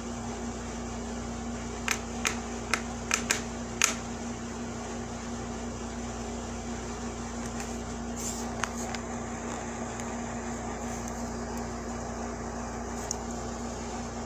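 Steady machine hum with a constant low tone, with a quick run of about six sharp clicks around two to four seconds in.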